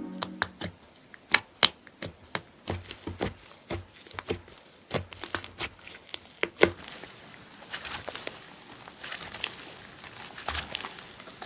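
Slime being squeezed and pressed by hand, with sharp popping clicks of trapped air coming thick and irregular for the first seven seconds or so, then giving way to softer, denser crackling.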